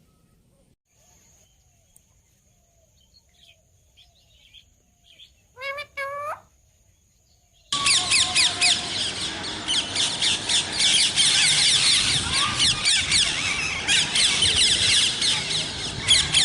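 Parrots calling: two short pitched calls about six seconds in. Then, starting abruptly about two seconds later, a loud dense chorus of many birds chirping at once.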